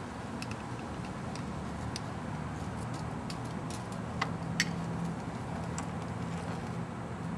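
Metal spoon clicking and tapping against a small glass as yogurt and fruit are spooned in: a scatter of light ticks, the two sharpest a little past the middle, over a steady low background hum.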